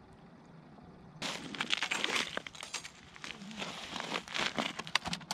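Irregular crunching and crackling of crusty snow on lake ice, starting about a second in, as someone kneeling beside an ice-fishing hole shifts position and lays a plastic tip-up down on the ice.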